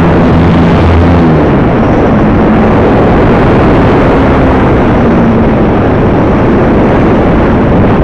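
Onboard sound from an electric RC plane in flight: loud wind rush over the camera's microphone, with the motor and propeller humming low underneath and shifting in pitch a few times.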